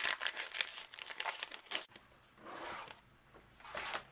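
Crinkling and rustling of paper and plastic craft supplies being handled while setting up for die cutting: quick dense crackling for about two seconds that stops abruptly, then softer, sparser rustles.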